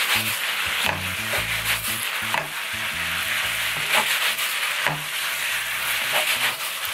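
Jjajang ramen noodles and sauce sizzling in a nonstick frying pan as they are stir-fried with a wooden spatula, which scrapes and knocks against the pan now and then.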